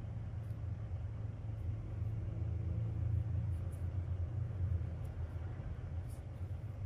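A steady low rumble, like distant traffic or a running appliance, swelling slightly in the middle, with a few faint soft ticks over it.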